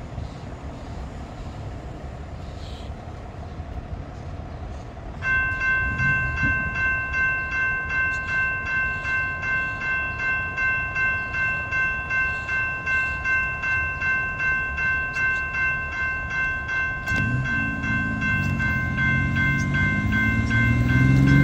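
A General Signals Type 2 electronic railroad crossing bell starts about five seconds in and rings on steadily in a fast, even pulse over light road traffic. Near the end, the whine of an approaching Siemens-Duewag U2A light rail train rises in pitch and grows louder.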